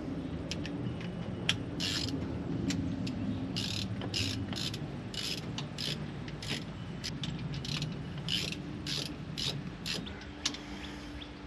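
A wrench ratcheting as hydraulic hose fittings are snugged up: a run of short, sharp metallic rasps, about two a second, with pauses between strokes, stopping shortly before the end.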